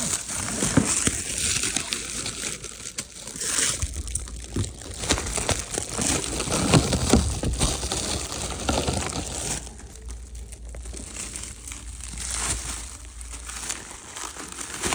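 Packaging crinkling and rustling as it is handled, with scattered small clicks. It is busier for the first ten seconds or so, then quieter.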